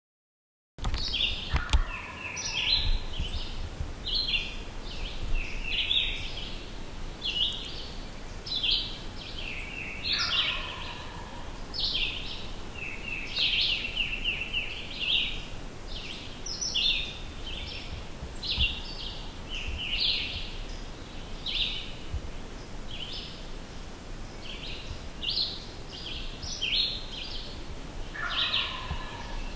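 Songbirds singing, short bright phrases repeating about once a second, starting abruptly about a second in. Three times a lower, falling series of notes is heard among them.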